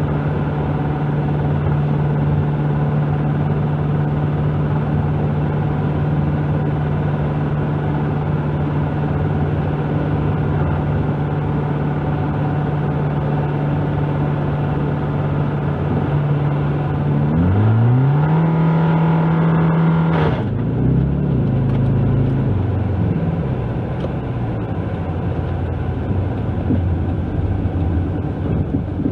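Inside the cabin of a 1999 Toyota Camry at highway speed, a steady engine drone. About seventeen seconds in the engine pitch suddenly climbs, and about three seconds later comes a brief sharp noise, after which the engine note drops and winds down unevenly. This is the overheated engine failing as the car breaks down.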